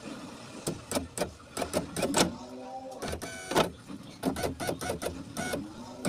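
Repeated clicks and rattles of a car's power window switch and door wiring being handled and tried, with a short whir a little past halfway from the power window motor, now working after the switch was rewired with two relays.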